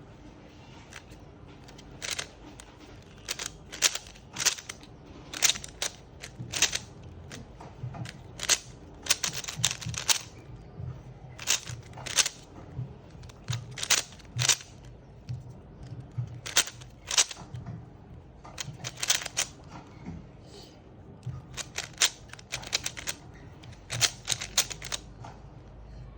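A run of irregular sharp clicks and taps, often several in quick succession, with short gaps between the clusters.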